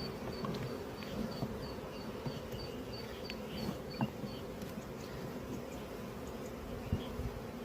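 Honeybee colony buzzing steadily around an opened hive, with a few short knocks about four and seven seconds in. A faint high chirp repeats about three times a second through the first half.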